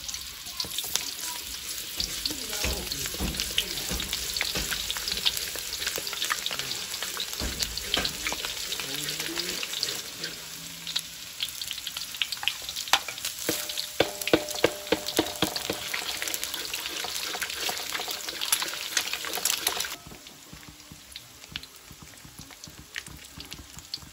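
Sliced shallots frying in hot oil in a wok, a dense crackling sizzle with a wooden spatula stirring. The sizzle drops sharply about 20 seconds in and goes on more faintly.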